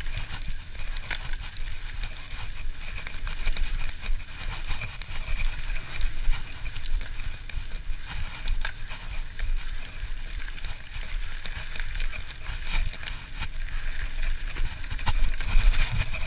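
Trek Slash full-suspension mountain bike riding down a dirt forest trail: steady tyre noise over the dirt with a low rumble, and frequent small clicks and rattles from the bike over the bumps.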